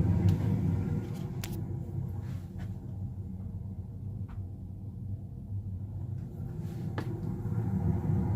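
Carrier Performance 96 two-stage gas furnace running on its first start-up of the heating season: a steady low rumble that eases about a second in and builds again near the end, with a few faint clicks.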